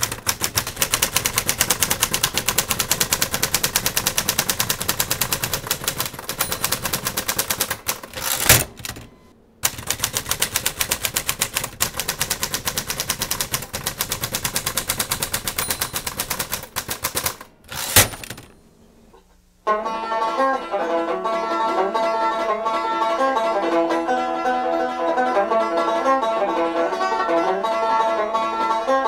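Rapid typewriter clatter, keys striking at a fast even pace, broken twice by a carriage-return ding and slide. About twenty seconds in, lively banjo-led one-man-band music starts.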